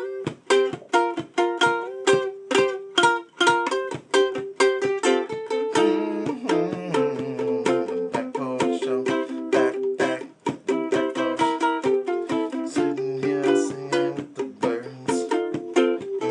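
Acoustic plucked string instrument strummed in a steady rhythm, several strokes a second, playing blues chords.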